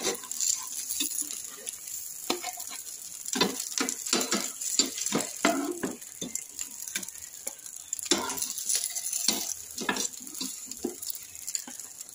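Steel ladle scraping and knocking irregularly against a nonstick frying pan as pieces of pan-fried semolina cake are scooped out, over a light sizzle of oil in the hot pan.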